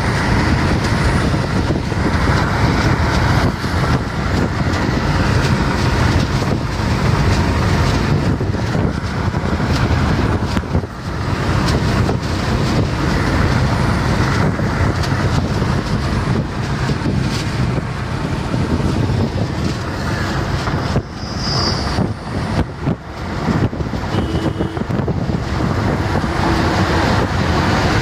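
Steady road and wind noise inside a Tata car's cabin at highway speed, with the engine running under it; the level dips briefly a few times.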